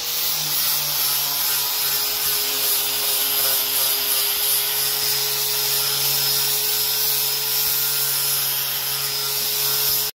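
Angle grinder with a sanding disc running steadily against a car's steel fender, grinding the paint off a dent down to bare metal: a constant motor whine under a grinding hiss. It cuts off suddenly at the very end.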